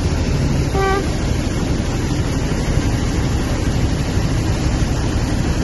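A vehicle driving through deep floodwater, heard from inside the cab: a steady low rumble of the engine mixed with water washing against the wheels and body.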